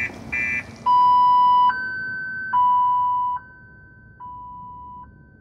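Car alarm going through its cycle: a last quick electronic beep, then a hi-lo two-tone pattern that switches between a lower and a higher pitch about every second and grows fainter partway through.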